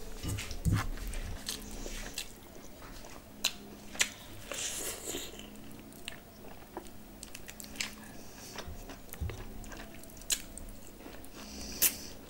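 Close-up eating sounds: biting and chewing curried meat and rice eaten by hand, wet mouth sounds broken by sharp clicks, the loudest a little after 3 s, at 4 s and near the end.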